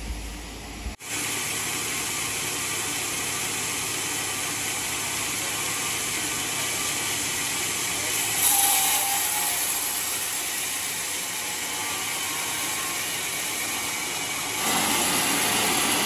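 Band sawmill running with a steady, even hiss-like noise that starts abruptly about a second in, swells briefly a little past halfway, and gets louder near the end.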